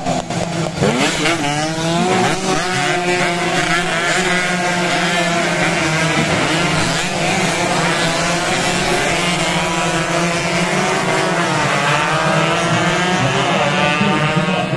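A pack of 116 cc two-stroke race motorcycles passing at full throttle. Many engines scream at once, their pitches rising and falling as they shift and go by.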